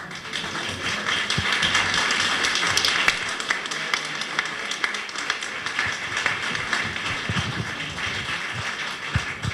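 Audience applauding: dense clapping that builds over the first second and then carries on steadily.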